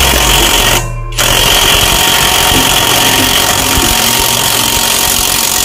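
Cordless VIOLEWORKS 800 Nm 1/2-inch electric impact wrench hammering on a car wheel's lug nut, with a short break about a second in before it is triggered again. The nut is tight and is not coming loose.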